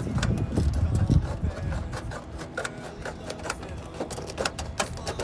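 Tin snips cutting through a steel roof shingle: a run of short, irregular metallic snips and clicks, several a second. A low rumble underlies the first second and a half.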